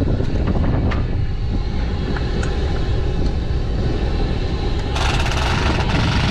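An engine running with a steady low rumble and a few light clicks. A hiss comes in suddenly about five seconds in.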